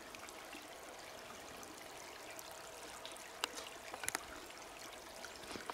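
Faint, steady trickle of snowmelt water running over rocks, with a couple of small clicks about three and four seconds in.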